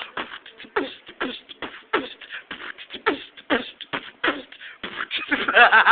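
Human beatboxing: short percussive mouth hits and falling vocal bass notes in a beat of about two a second, turning louder and denser near the end.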